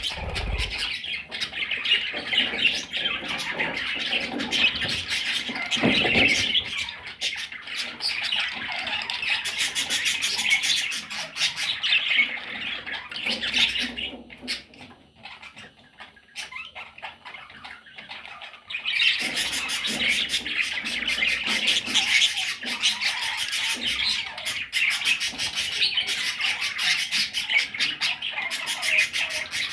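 A group of budgerigars chattering and squawking continuously. The chatter thins out for a few seconds about halfway through, then picks up again.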